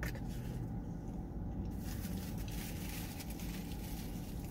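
Close-up chewing of chili cheese fries, wet crackly mouth sounds that come and go, over a steady low hum.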